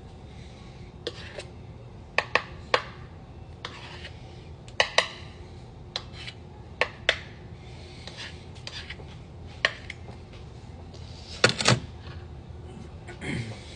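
Irregular clinks, clicks and knocks of kitchen utensils and dishes being handled, with a louder quick clatter near the end.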